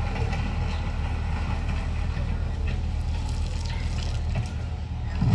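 Diesel engine of a rail-mounted track excavator running steadily as it digs ballast, with scattered clatter of stones and a louder knock near the end.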